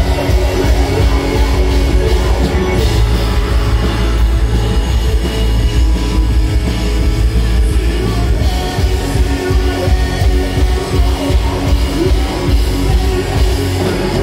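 Live rock band playing: electric guitar, bass guitar and drums, with a heavy, steady low end.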